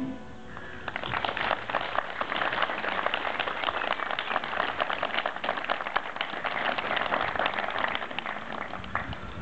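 Audience applauding as the big band's song ends: the clapping starts about a second in and dies away near the end.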